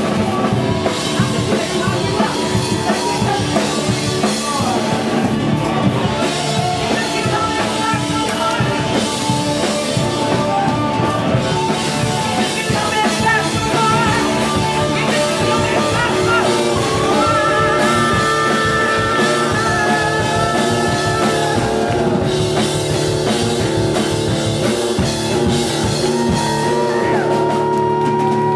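Live rock band playing loudly: drums driving a steady beat under held instrument notes, with singing.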